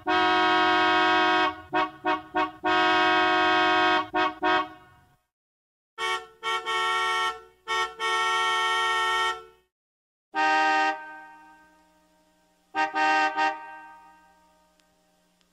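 A series of car horn honks, long blasts and short beeps, played as several separate effects with short silences between them; the last two ring on and fade out.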